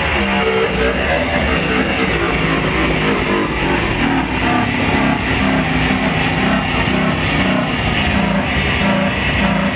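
Live electronic noise music from synthesizers and effects pedals: a loud, dense wall of noise over a low drone, with short pitched tones stepping up and down.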